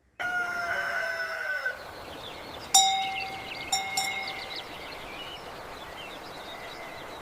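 Cowbells clanging: a ringing tone just after the start, then a sharp clang a little under three seconds in and two lighter ones about a second later, each ringing on. A steady outdoor hiss with faint chirps lies beneath.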